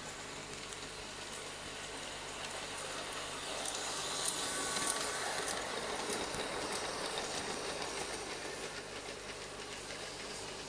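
G-scale model ore train behind a Piko BR 204 diesel locomotive rolling past on its track, the wheels clicking over the rail joints. It grows louder as it comes close, about four seconds in, then slowly fades.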